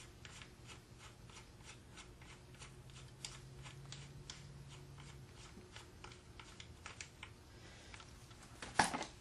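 Light metallic clicks, a few a second, as a wrench works the nut off the end of a Franklin electric motor's shaft. A louder clack comes near the end.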